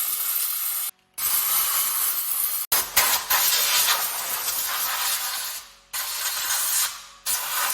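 Compressed air hissing from a blow gun in several long bursts, each cutting off sharply, clearing dirt out of the spark plug wells before the plugs are removed.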